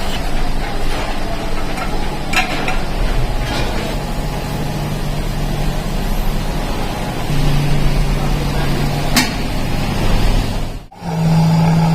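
Factory machinery running with a steady hum and a din, with a few sharp knocks. The sound drops out briefly near the end, and a different steady hum follows.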